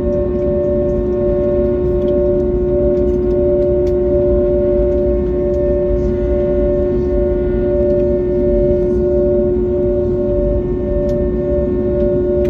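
Airbus A321neo's engines at taxi idle, heard inside the cabin: a steady low rumble with two strong, even hums, the higher one pulsing slightly, as the airliner taxis slowly.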